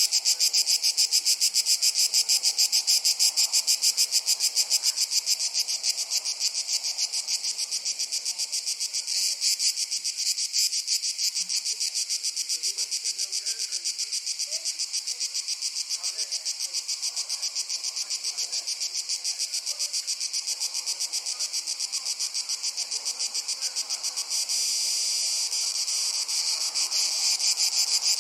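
Crickets chirping in a fast, even, high-pitched pulse. The chirping softens about six seconds in and grows louder again near the end.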